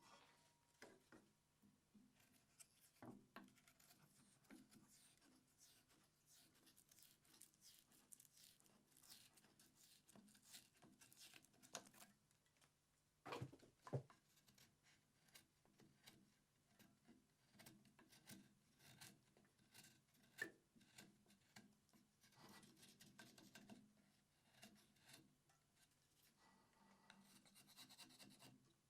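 Faint, irregular scratching and scraping with a few light knocks, one stronger knock about halfway through: bark being stripped from a sawn fruit-wood log by hand.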